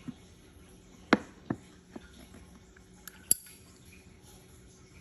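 Full-nickel 1946–47 Zippo lighter handled in the hand: a handful of sharp, irregular metallic clicks and clinks, the loudest a little after the first second and another just past three seconds with a short ring.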